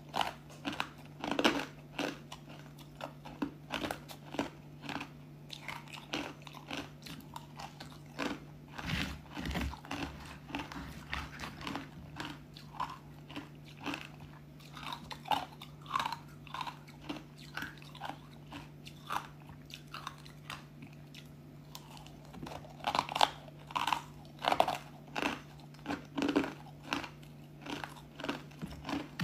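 Close-up chewing and crunching of ice pieces coated in matcha powder: a steady run of sharp, brittle crunches as the ice breaks between the teeth, with a louder flurry of crunching near the end.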